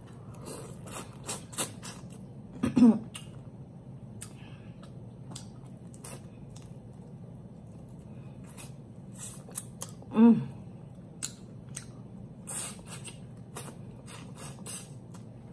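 Close-up eating sounds: lip smacking and sharp wet clicks while chewing and sucking meat off a rotisserie chicken neck bone. Two brief hums, about three seconds in and again about ten seconds in, are the loudest sounds.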